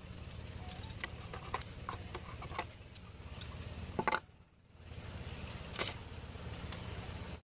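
Light clicks and taps of bamboo pieces being handled on a wooden tabletop, with a louder cluster of knocks about four seconds in, over a steady low hum.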